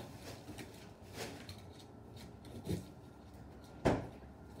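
A knife cutting and scraping at a cardboard box in a few short, slow strokes, with one sharp click near the end.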